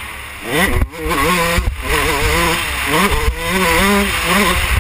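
Yamaha YZ125 single-cylinder two-stroke motocross engine revving hard under acceleration, its pitch climbing steeply and breaking off twice as the rider shifts, then rising and falling with the throttle. Heavy wind buffeting on the helmet-mounted microphone.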